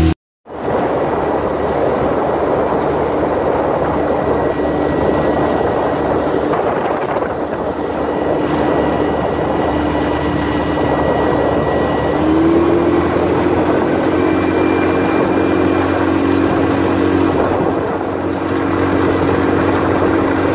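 Yamaha 9.9 hp four-stroke outboard running under way, a steady hum over a constant rush of wind and water. Its pitch steps up slightly about twelve seconds in.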